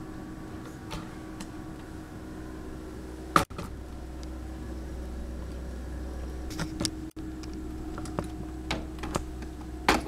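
Scattered light clicks and taps over a steady low hum, with one sharp click about three and a half seconds in.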